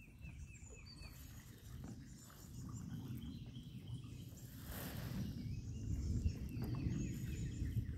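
Birds calling outdoors: a quick series of repeated falling chirps near the start and again in the second half, with a few short high whistles. A low rumble of wind on the microphone runs underneath, and there is a brief swish about halfway through.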